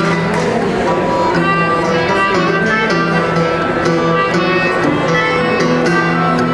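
Live folk band striking up a traditional dance tune on accordion, saxophone and acoustic guitar, with a steady beat.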